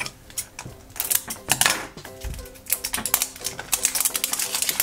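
Plastic shrink-wrap crackling and crinkling as it is torn and peeled off a plastic capsule ball, a quick uneven run of small clicks. Soft background music underneath.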